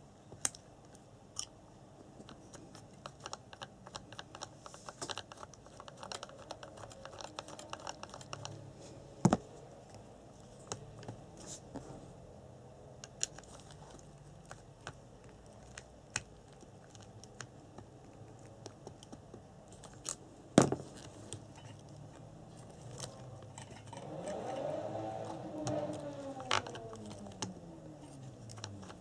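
Small plastic clicks and knocks from hands handling an RC buggy, with two sharper knocks. Near the end, the Tamiya Neo Fighter's gearbox and freshly fitted 550 brushed motor whir as the rear wheel is turned, rising in pitch and then slowly falling away.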